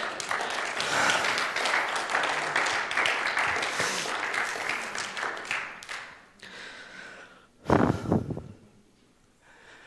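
Congregation applauding, a dense patter of many hands that dies away after about six seconds. About eight seconds in, a brief loud burst close to the microphone.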